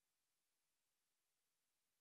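Near silence: the footage has no soundtrack.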